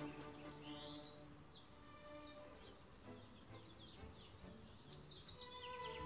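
Faint chirps of small songbirds: short, quick sweeping notes scattered throughout, over quiet held tones of background music.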